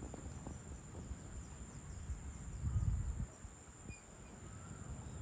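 Evening outdoor ambience: a steady high-pitched drone of crickets over a low rumble that swells briefly about halfway through, with a few faint chirps.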